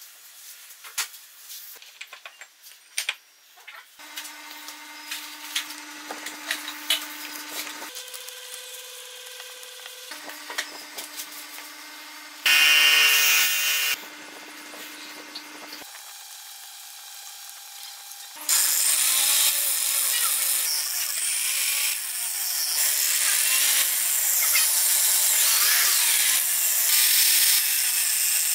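An angle grinder's abrasive disc grinds the teeth of a steel circular saw blade, a loud, steady hissing grind through the last ten seconds or so. Before that come scattered knocks of wood pieces being handled, then short spells of a power tool running, with one brief, very loud burst near the middle.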